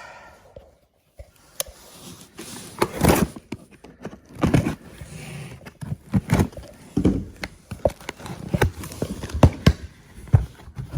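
Cardboard boxes and packing being rummaged through and opened: irregular knocks, scrapes and rustles as parts are pulled out of an e-bike's shipping box.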